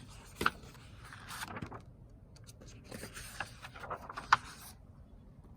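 Paper rustling with a few light clicks and knocks: a picture book handled as its page is turned.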